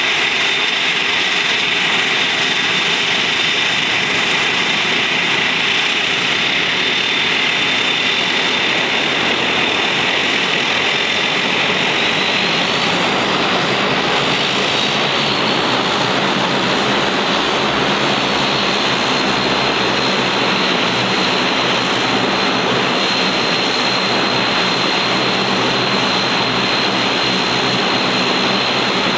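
Bombardier Dash 8 Q400's Pratt & Whitney PW150A turboprop engines running steadily: a loud high whine over a steady propeller drone. The whine's pitch rises slightly about twelve seconds in.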